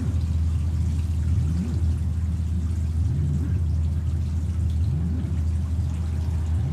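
Electronic ambient noise music: a steady low drone with a rising, sliding tone that recurs every second or two, over a faint hiss.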